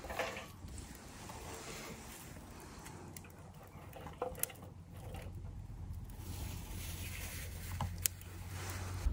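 Dry kindling twigs being handled and laid onto a small wood fire in a raised metal fire pit, with a few sharp cracks over a low steady rumble.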